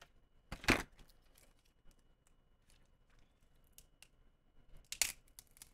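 Phone screen parts being handled: a short rustle about half a second in, then a few light clicks and another short rustle near the end, with quiet between.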